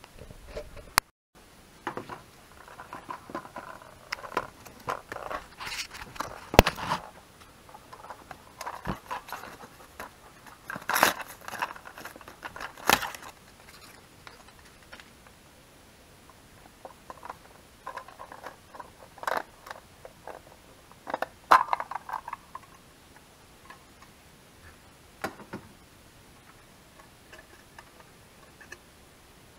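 Hands handling a halogen headlight bulb and clear plastic headlight parts: irregular plastic clicks, scrapes and rustling in short bursts with quiet pauses between them.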